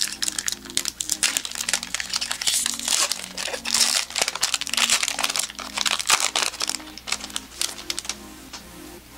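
Foil wrapper of a Magic: The Gathering booster pack crinkling loudly as it is torn open by hand and the cards are slid out, easing off near the end. Soft background music runs underneath.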